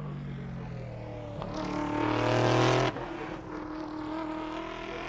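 Race car engine passing on a wet track, its note falling as it slows for the chicane, then rising loudly with a hiss of tyre spray as it accelerates. The sound cuts off abruptly about three seconds in, leaving a quieter, steady engine note.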